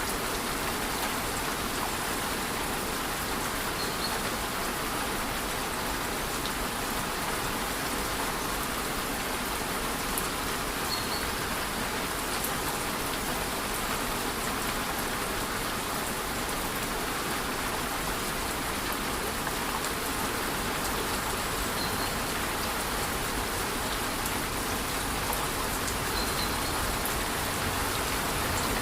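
Steady rainforest waterfall and light rain: an even, unbroken rush of falling water and rain. Four faint, short, high chirps sit over it.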